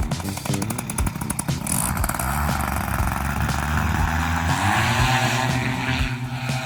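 Paramotor engine and propeller running, with distinct clicking pulses at low speed in the first second and a half, then the engine revving up, its pitch rising about four to five seconds in.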